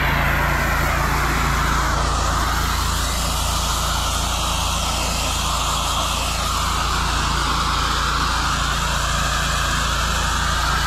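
Water spraying from a pressure-washing rinse line to wash cleaner off landscape blocks. It is a steady hiss that shifts slowly as the spray moves, over the steady hum of the pressure washer's engine.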